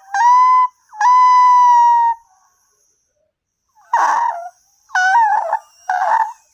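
Dog vocalising in a high, sing-song howl: two held, pitched calls, a pause, then three shorter, rougher yowls about a second apart.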